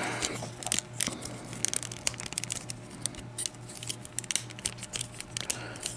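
Hard plastic parts of a transforming robot toy being worked and pressed together by hand: irregular small clicks and rattles as a tight peg is forced into place, over a faint low hum.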